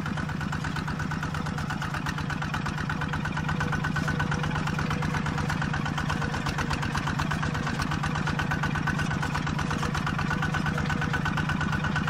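Small farm tractor's engine running steadily with an even, rapid chugging as the tractor works across ploughed soil.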